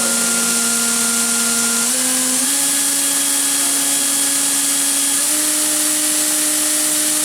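Fanuc Robodrill Alpha-T21iD machining center spindle running at high speed, a steady whine with a high hiss that steps up in pitch three times as the spindle speed is raised, up to about 18,000 rpm.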